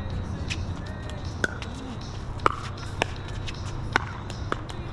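Pickleball paddles hitting the plastic ball in a rally: sharp pocks, four loud ones about a second apart, with fainter clicks between.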